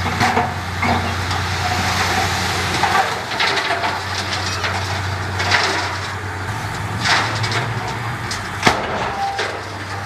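Bulldozer's diesel engine running steadily under load, with irregular sharp cracks and clanks over it. The sharpest crack comes about three-quarters of the way through.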